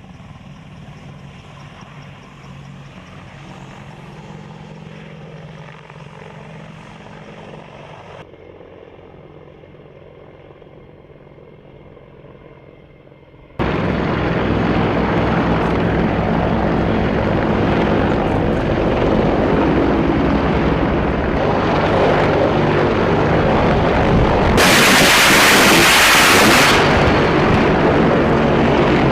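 AH-64 Apache helicopter rotor and engines, first fairly faint, then cutting abruptly to a much louder, close pass with a fast, even rotor beat about halfway through. Near the end a loud hiss lasts about two seconds over the rotor sound.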